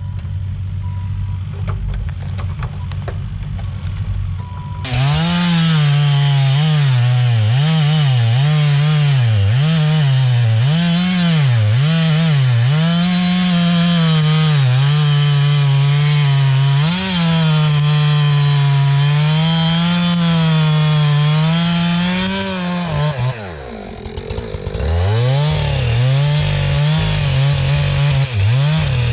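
Two-stroke chainsaw cutting through wood at full throttle, its engine note rising and dipping as the chain bogs in the cut. It starts about five seconds in over a lower engine hum, falls away briefly near the end, then cuts again.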